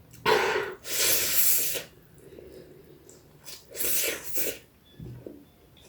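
Loud slurping of noodles and soup: a sharp airy intake followed by a long hissing slurp, then a second shorter slurp a couple of seconds later.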